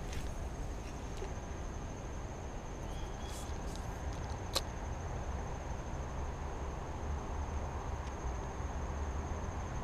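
Steady outdoor background by a creek: a low rumble under a thin, steady high whine, with one sharp click about four and a half seconds in.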